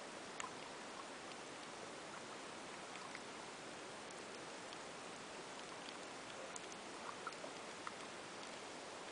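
Underwater ambience picked up by a submerged camera: a steady hiss with scattered faint clicks and crackles.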